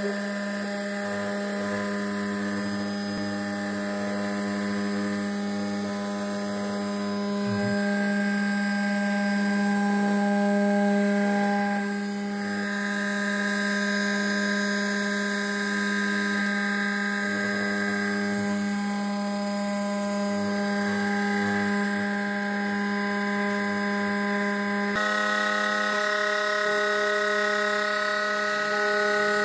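Snapmaker CNC spindle running at steady speed with a whine, milling isolation traces through the copper of a copper-clad circuit board. The tone shifts slightly near the end.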